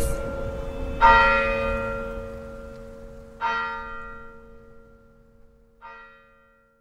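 Church bell tolling slowly: three strikes about two and a half seconds apart, each fainter than the last. The low hum rings on between strikes and dies away near the end.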